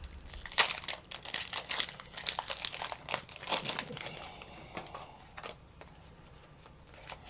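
Foil wrapper of a Pokémon card booster pack crinkling and crackling as it is torn open by hand, dying away after about four seconds.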